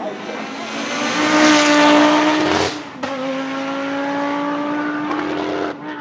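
Audi Sport Quattro S1 E2's turbocharged inline five-cylinder engine at full throttle as the Group B rally car drives by, rising to its loudest about two seconds in. The note breaks off briefly just before halfway, then holds steady and stops sharply near the end.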